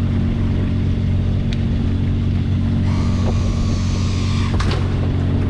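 A small fishing boat's engine running steadily with a low hum. A brief higher whine comes a little past halfway, and a few sharp clicks and knocks are heard.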